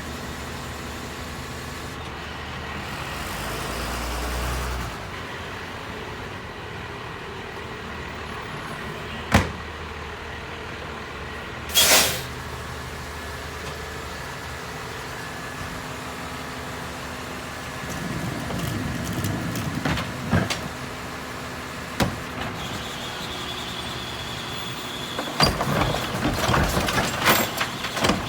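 Rear-loader garbage truck running at idle. About two seconds in, the engine rises in a low swell for a few seconds. There are sharp knocks, a short burst of hiss about twelve seconds in, and loud clattering and banging of trash near the end.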